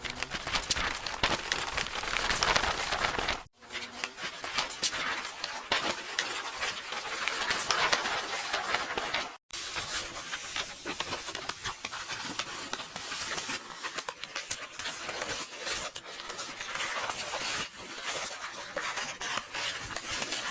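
Paper rustling and crackling as book pages are turned and torn: a dense, crinkly noise in three stretches, broken by short gaps about three and a half and nine and a half seconds in.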